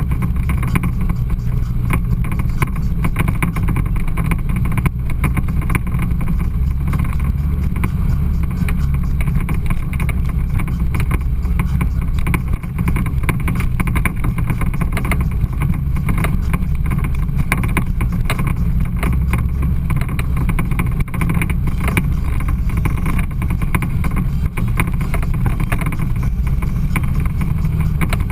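Side-by-side off-road vehicle (UTV) engine running steadily while driving a rough trail, with frequent knocks and rattles from the bumpy ride.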